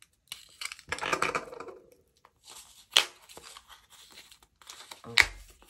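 Packaging being torn open and crinkled while a photocard parcel is unwrapped, with sharp snaps about three seconds in and near the end, the last with a dull thump.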